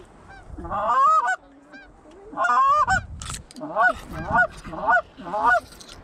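Geese honking: a couple of drawn-out honks, then four short sharp honks in an even run, about two a second, near the end.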